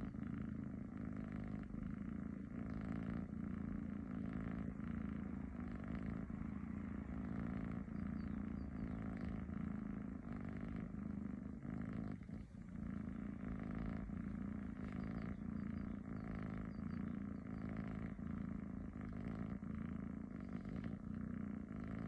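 Tabby cat making a continuous low rumble, which is called snoring, with one brief break about halfway through.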